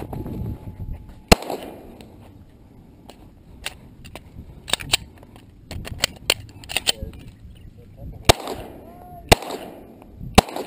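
Semi-automatic pistol shots at steel targets: one loud shot about a second in, then, after a pause filled with fainter cracks, three more about a second apart near the end.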